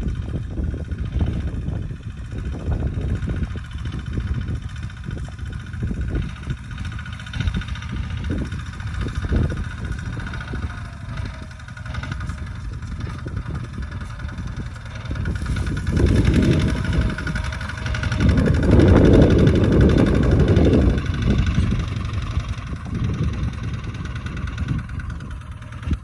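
Kubota RT155 single-cylinder diesel engine of a two-wheel walking tractor running steadily under load while ploughing, growing louder as it approaches and loudest a little past the middle.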